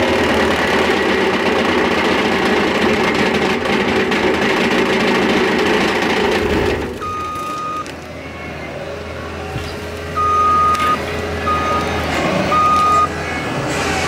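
Compact track loader's diesel engine running hard with a skid steer brush cutter spinning in cedar. About halfway through the engine drops back, and the loader's backup alarm beeps four times as it reverses.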